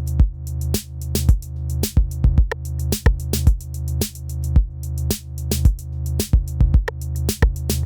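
Electronic background music: a drum-machine beat over a steady synth bass, cutting off suddenly at the end.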